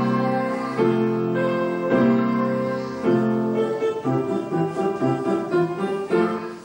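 Grand piano being played, a slow tune of chords and notes struck about once a second and left to ring.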